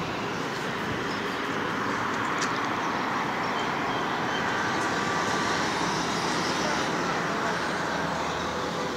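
Steady, even noise of road traffic.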